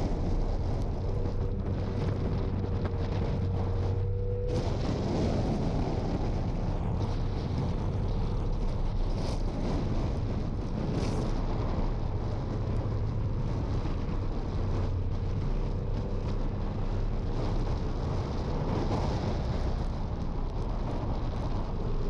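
2009 Jeep Wrangler JK driving over sand dunes: a steady engine rumble heavily buffeted by wind on an outside-mounted camera's microphone.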